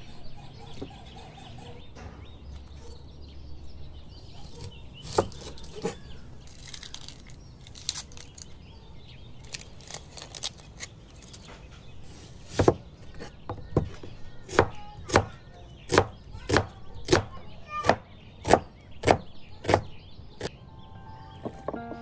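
Blade chopping food, heard as a steady run of sharp strikes about two a second through the second half.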